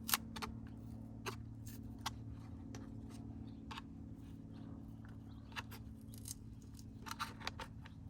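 Scattered small clicks and crackles of an old, blown car door speaker's surround being peeled and pried off, a few more near the end, over a steady low hum.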